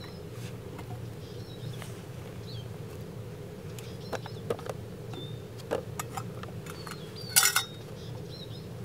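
Metal camp cookware being handled: a few light knocks and clicks, then a brief, louder clatter of a steel mug against the pot near the end, over a steady low hum. A small bird chirps now and then.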